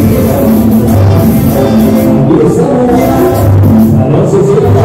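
Loud dance music played through a sonidero's tall speaker stacks.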